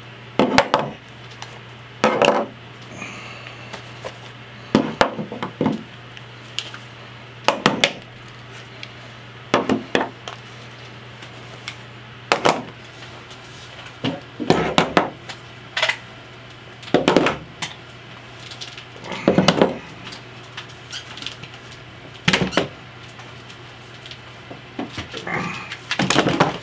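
Handguns being set down one after another on a wooden tabletop: sharp clunks and rattles of the guns striking wood, about a dozen, every two to three seconds. Near the end a large AK-pattern pistol is laid down.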